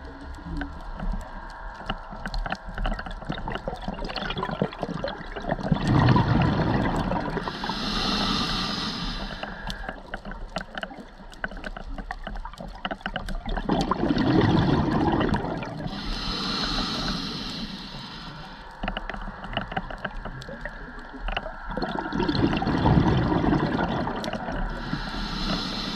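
Scuba diver breathing through a regulator, heard underwater: three slow breath cycles, each a loud rush of exhaled bubbles followed about two seconds later by the hiss of the next inhalation.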